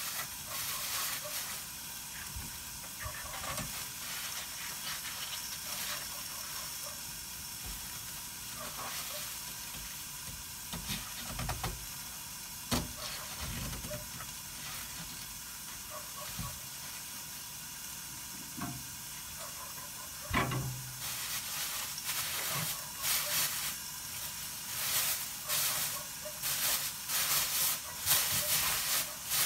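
Mung bean sprouts steaming and sizzling in their own moisture under a glass lid, in a pan with no oil: a steady hiss of steam with crackling pops that grow louder and more frequent toward the end.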